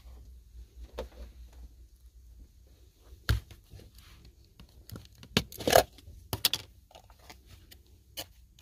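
Food packaging handled on a table: rustling and crinkling, the foil lid of a cream cheese tub being peeled back, and a few sharp knocks of containers set down. One sharp knock comes about a third of the way in, and the loudest rustle a little past the middle.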